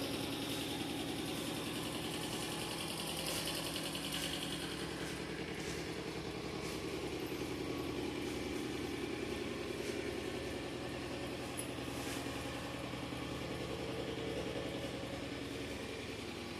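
A steady, low mechanical hum like a running engine, unchanging throughout, with a faint hiss above it.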